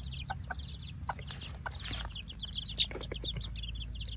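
Half-grown chicks peeping in a busy run of short, high cheeps, with a mother hen giving a few low clucks about three seconds in.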